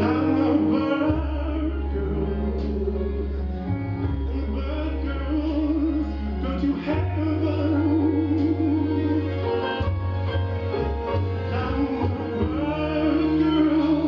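A slow song with a singer holding notes in a wide vibrato over held low bass notes.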